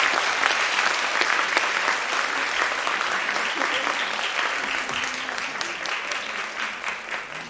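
Audience applauding, many hands clapping at once, the clapping slowly dying away.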